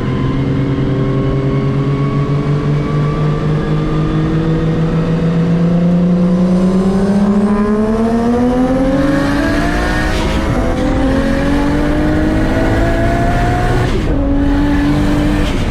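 Turbocharged car engine accelerating hard from a rolling start in a roll race, its note climbing steadily under boost, with gear changes about ten and fourteen seconds in where the pitch drops and then climbs again.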